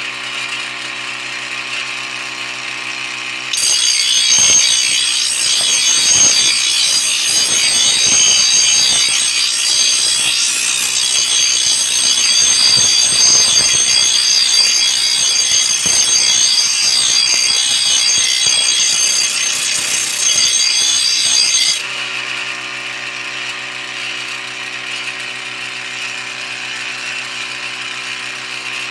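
A pulley-driven grinding wheel spinning with a steady hum. About three and a half seconds in, a truck leaf-spring steel spear blade is pressed against the wheel and grinds loudly with a harsh hiss for about eighteen seconds, then comes off and the wheel runs free again.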